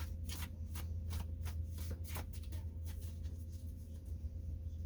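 Tarot cards being shuffled: a quick run of short card flicks for about the first two seconds, then only a few, over a steady low hum.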